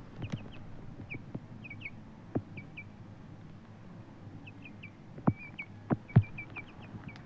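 Bantam chicken making soft, high peeps in quick little groups, with a few sharp knocks and taps, the loudest near the end.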